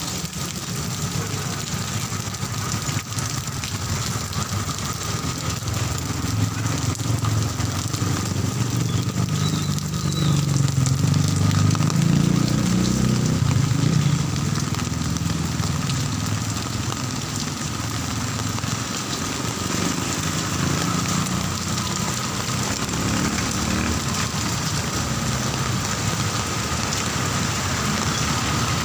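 Heavy rain falling steadily, with a motor vehicle's engine passing and loudest a little before the middle.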